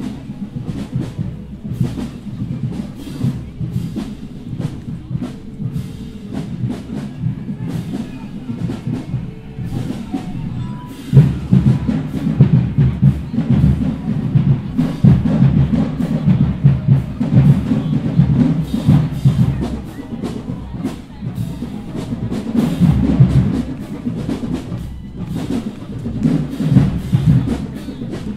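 Marching band drumline playing a driving cadence of drum hits, heavy in the low drums, which gets louder about eleven seconds in.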